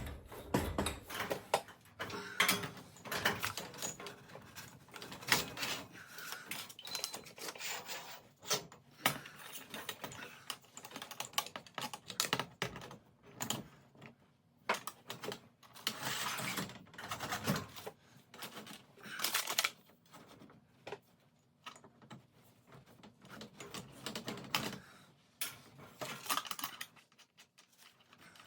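Irregular metal clicks, clinks and rattles of wrenches and hardware as garage door torsion springs are bolted up to the middle bracket, with a few longer scraping or ratcheting stretches among the clicks.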